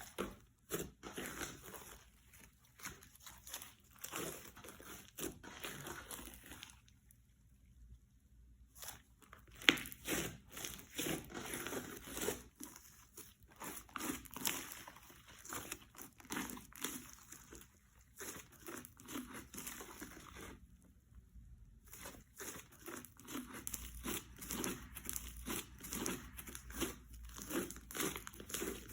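Hands kneading and stretching slime: dense sticky crackling, squishing and small popping clicks, stopping twice for a couple of seconds.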